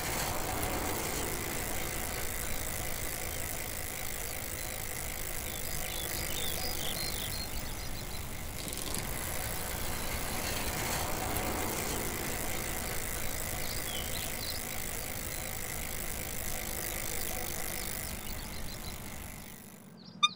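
Steady outdoor road ambience, an even wash of wind and passing-traffic noise with a few faint high chirps, fading out near the end.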